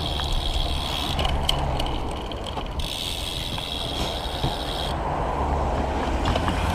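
Roadside wind rumble on the microphone and passing road traffic, with a few light mechanical clicks from a road bike being handled after its wheel was refitted.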